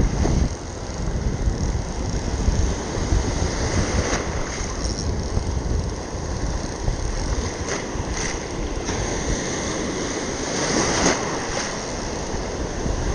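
Wind buffeting the microphone over washing surf, with a few brief knocks.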